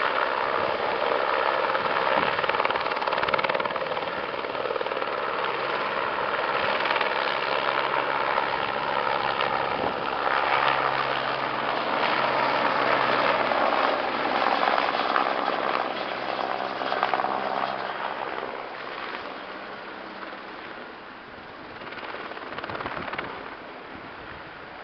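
Firefighting helicopter flying with a water bucket slung beneath it: steady rotor beat and turbine whine, fading away in the last few seconds as it flies off.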